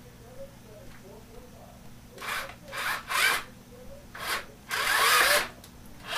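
Cordless drill boring holes in an LED light tube, run in a string of short bursts from about two seconds in, the longest lasting just under a second near the end.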